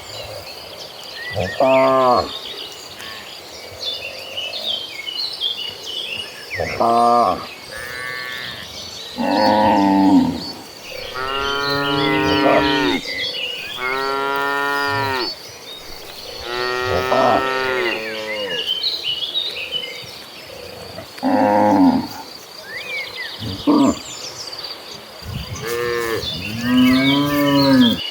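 A herd of cattle mooing, about a dozen calls one after another, some short and some drawn out for a second or two, at times overlapping. A faint steady high whine and small bird chirps run behind them.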